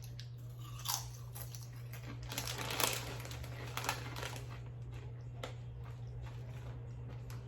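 Foil chip bag crinkling in irregular rustles as it is handled and opened, over a steady low hum.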